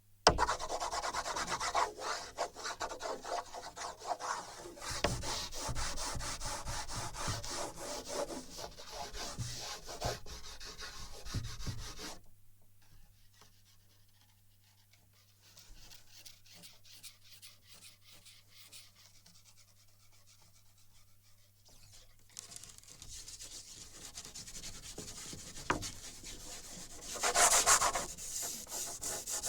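Drawing strokes rubbing and scraping on a wooden board, picked up by sensors on the board. The scratching stops for about ten seconds near the middle, then resumes and is loudest a couple of seconds before the end.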